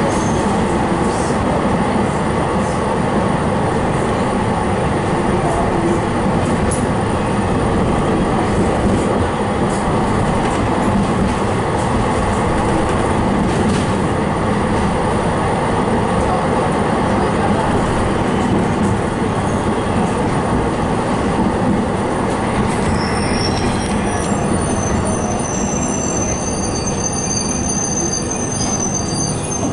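Interior running noise of a Fiat Ferroviaria 4900-series tram: a steady rumble of wheels on rails. About three-quarters of the way through, a thin, high squeal from the wheels joins in as the tram slows into a stop.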